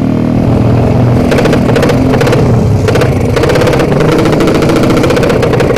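Loud engine of a modified drag-style motorcycle running hard under way, its exhaust firing in a fast, continuous rattle.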